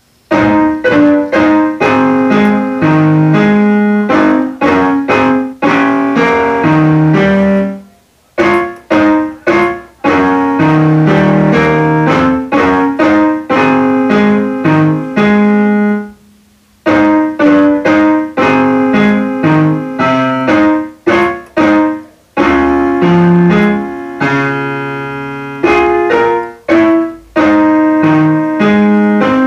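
Electronic keyboard played with a piano sound: a melody over chords and a bass line, in phrases broken by short pauses about eight and sixteen seconds in.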